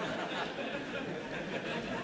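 Audience chuckling and laughing, a steady murmur of many voices with no single clear speaker.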